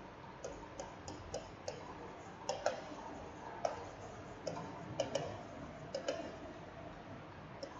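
Scattered, irregularly spaced clicks and taps of a stylus tip striking a writing tablet as words are handwritten stroke by stroke.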